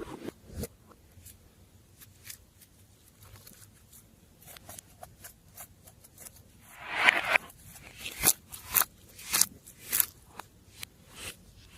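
Glossy slime being worked by hand, making scattered sticky clicks and pops. About seven seconds in there is one longer squish, followed by a quicker run of louder pops.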